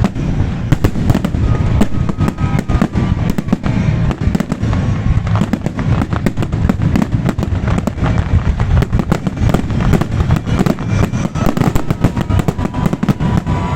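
Fireworks salute: a dense, rapid barrage of bangs and crackles, several a second, over a continuous low rumble.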